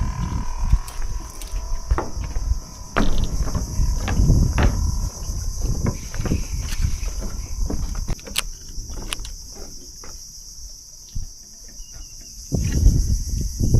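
Steady, high-pitched chorus of insects buzzing without a break. Irregular low rumbling and a scattered series of knocks and clicks run over it.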